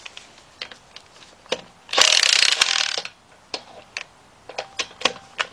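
DeWalt cordless impact wrench hammering a lug nut for about a second, with a 20 mm socket on it, trying to break the nut loose. Scattered clicks and rattles of the socket and nut come before and after the burst.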